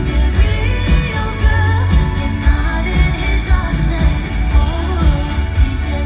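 Live pop song: a female singer's voice over a band with heavy bass and a steady drum beat.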